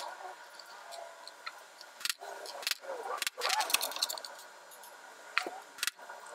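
Small metal half-hollow rivets clinking as they are handled and set into a plywood panel, with several sharp knocks scattered through; the last ones, near the end, are a mallet striking a rivet flaring tool.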